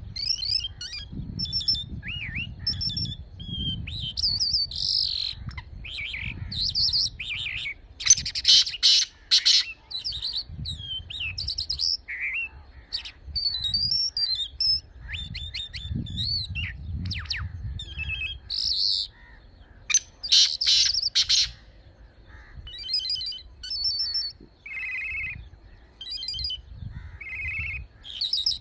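Lark singing a long, varied song of rapid chirps, trills and whistled glides, with short breaks, over a low background rumble.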